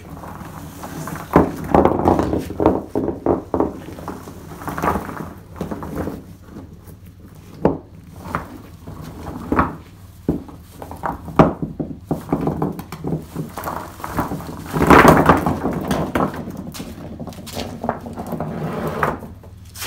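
Rough geodes tipped out of a cloth jacket and set down on a concrete floor: a run of irregular heavy thunks of rock on concrete, with a denser clatter about three-quarters of the way through as several land together.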